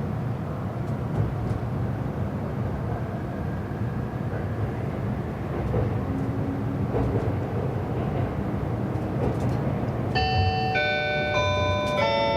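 Inside a JR East E259 series Narita Express train running, a steady low rumble. About ten seconds in, the onboard announcement chime starts, a bright melody of clear notes changing about every half second.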